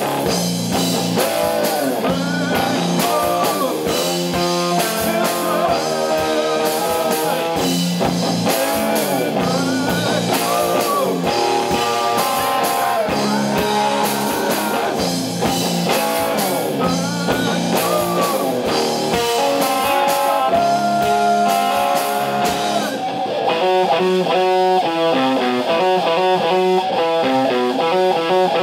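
Live rock instrumental: distorted electric guitar playing over a drum kit, with bent and sliding notes. About 23 seconds in, the drums thin out and the guitar switches to a choppy, repeating figure.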